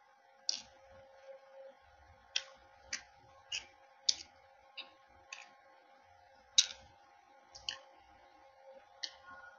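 Crisp fried samosa pastry crunching as it is chewed: about a dozen sharp, irregular crunches, the loudest about four and six and a half seconds in. A faint steady hum lies underneath.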